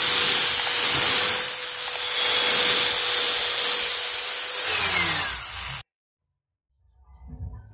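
Electric angle grinder with a thin cutting disc running at speed, its steady whine mixed with the rasp of the disc cutting grooves into a small block of mahogany. About five seconds in, the whine falls in pitch as the disc spins down, then the sound cuts off abruptly.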